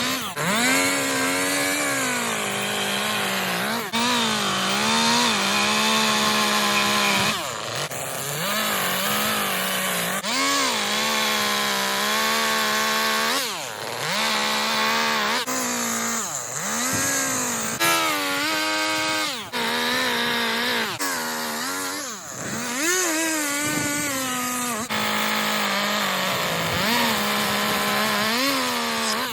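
Chainsaw running at high revs while cutting into wood for carving. Its pitch dips under load and climbs again many times as the throttle is worked, with a few brief let-offs.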